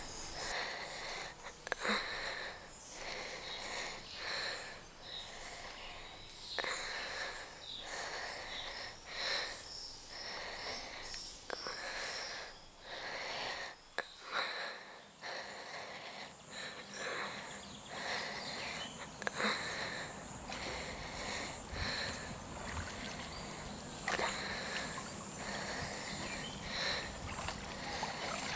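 A woman's heavy, strained breathing in repeated breaths over a steady high drone of rainforest insects.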